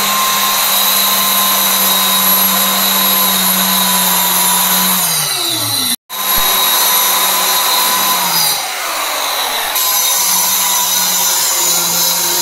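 Handheld electric circular cutter running at high speed, cutting into a laminate (Sunmica) faced board: a steady motor whine whose pitch sags twice as the blade bites into the cut. The sound breaks off for a moment about six seconds in.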